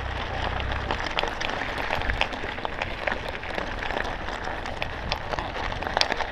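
Mountain bike tyres rolling over loose gravel: a steady crunching crackle full of small clicks.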